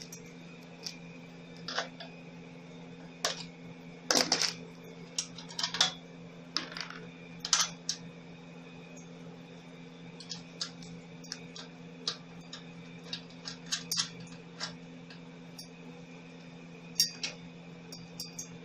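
Irregular metallic clicks and clinks as welding leads and their connectors are unplugged and reconnected to the DC terminals of an inverter welding machine, over a steady low hum.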